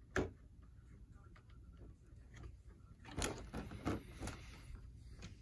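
Handling noises from an Axial SCX10 III Gladiator RC crawler truck being moved by hand: a sharp click shortly after the start, then a cluster of rustles and knocks a little after three seconds, with faint ticks between.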